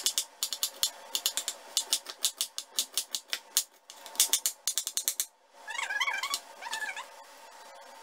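Kitchen knife slicing a red onion: a quick run of sharp chops against a wooden board that stops about five seconds in. About a second later comes a short wavering call, heard twice.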